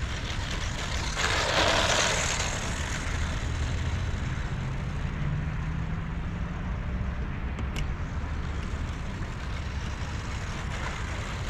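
Wind rumbling on the microphone, gusting harder about a second in.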